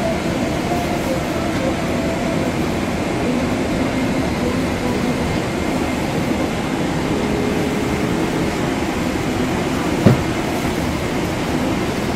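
Steady rushing cabin noise inside an airliner, with a single short knock about ten seconds in.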